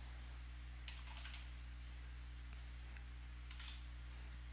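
Typing on a computer keyboard: a few scattered keystrokes in small groups, over a steady low hum.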